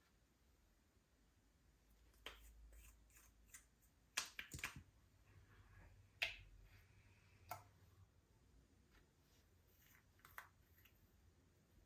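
Faint, scattered sticky clicks and pops of slime being stretched and folded by hand, with a quick run of clicks a third of the way in and a few single ones after.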